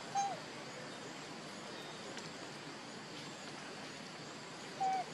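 An animal call: two short, clear notes that dip in pitch at the end, about five seconds apart, over a steady outdoor hiss.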